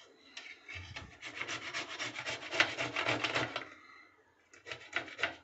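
Steamed, softened amla (Indian gooseberries) being grated on a stainless steel box grater: a quick run of rasping strokes for about three seconds, a short pause, then a few more strokes near the end.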